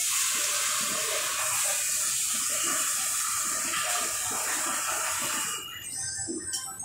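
A loud, steady rushing hiss like running water, starting abruptly and cutting off about five and a half seconds in.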